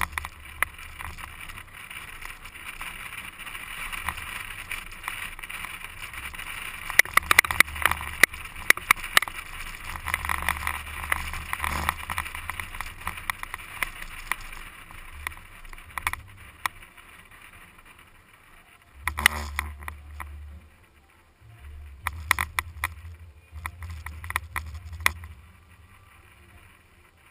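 An SUV driving fast over desert sand, heard through a camera mounted on the outside of the vehicle: wind rushing and buffeting the microphone, with a low rumble and scattered knocks and pops. The rush eases about halfway through, leaving short gusts of rumble.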